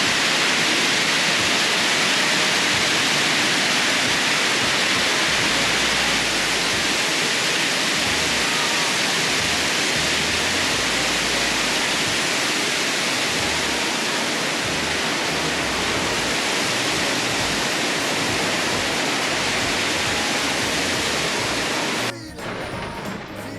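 Heavy rain pouring down in a downpour, a loud, steady, dense hiss. It cuts off abruptly near the end, leaving a quieter sound.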